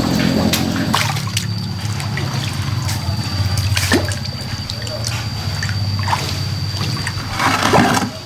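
Water splashing and sloshing in a plastic basin as a hand stirs live carp and catfish and the fish thrash, with the loudest splashing near the end. A steady low hum and a thin high whine run underneath.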